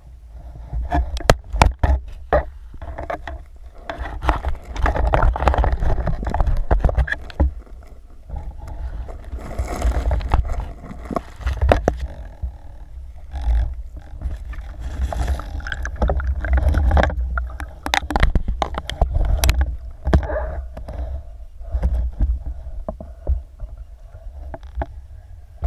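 Underwater sound picked up through an action-camera housing: water rushing and swirling past in repeated surges as the spearfisher swims down, over a constant low rumble, with scattered sharp clicks and knocks.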